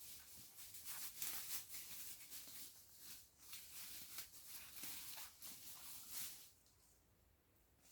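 Soft, irregular rustling and scraping strokes that fade out about a second and a half before the end.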